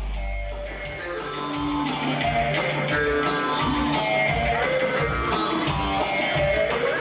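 Live Turkish ensemble music: a sustained low note gives way about a second in to the full band, a plucked-string melody over a steady percussion beat.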